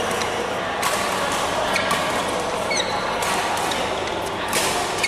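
Badminton rally: sharp cracks of rackets hitting the shuttlecock several times, with short high squeaks of court shoes in between, echoing in a large hall.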